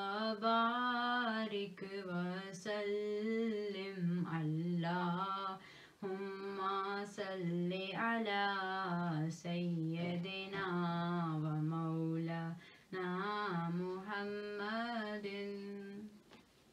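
A solo voice sings a slow, drawn-out, ornamented durood melody in several long phrases with no instruments, and it stops shortly before the end.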